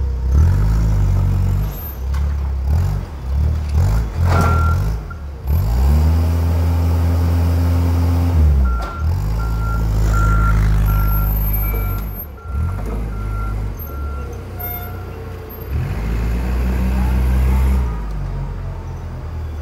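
A propane-fuelled Toyota forklift clamp truck's engine speeding up, holding and dropping back several times as the truck is worked. A backup alarm beeps at a steady rate for several seconds in the middle.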